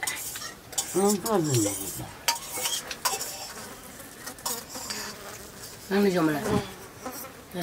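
Light clinks and scrapes of fingers and spoons on stainless-steel plates while eating rice. A short voice-like cry comes twice, about a second in and again about six seconds in.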